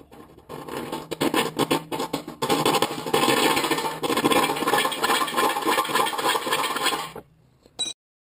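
A round file rasping in quick back-and-forth strokes, cutting a key notch into the edge of the quick-disconnect mounting hole in a Hobart Stickmate LX welder's front panel. It starts lightly, gets louder about two and a half seconds in, and stops about a second before the end.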